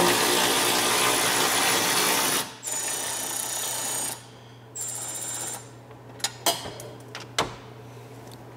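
Power tool fitted with a 10 mm socket, running to back out bolts: one long run, then two shorter runs with a thin high whine, and a few sharp metallic clicks near the end.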